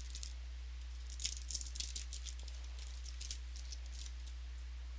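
Trading cards being flicked and slid through the hands: a few crisp card-on-card flicks just after the start and a quick run of them at about one to two seconds, over a steady low electrical hum.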